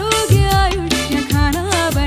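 Background music: a bending melody over a bass line and a steady percussion beat.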